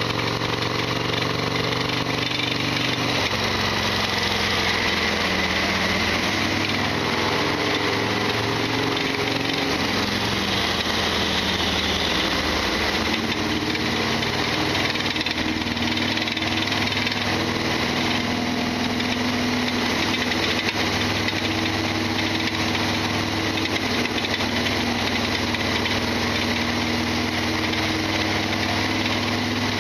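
Harley-Davidson Sportster XL1200R's air-cooled 1200 cc V-twin engine running under way, its pitch shifting a few times with throttle and gear changes, over a loud mechanical clatter that the owner describes as the bike's usual rattling abnormal noise.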